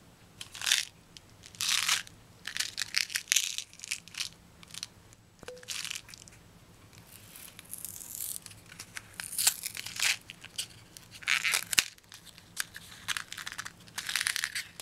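A miniature cardboard Nerds candy box handled and torn open at its end flap: an irregular string of short, scratchy scrapes and tears of cardboard.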